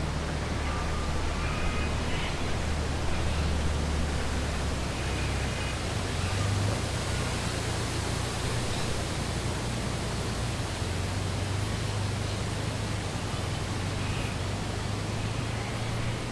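Steady outdoor background hiss over a low rumble, with a few faint short bird calls now and then.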